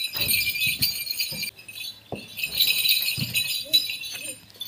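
Small ankle bells (ghungroo) tied to players' feet jingling in quick shakes as they step and dodge about, dropping out for a moment about one and a half seconds in.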